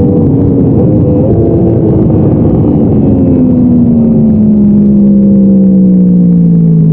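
Yamaha R1 inline-four sport-bike engine running hard on the track, heard from onboard. Its revs hold for the first few seconds, then fall smoothly and steadily and level off low near the end.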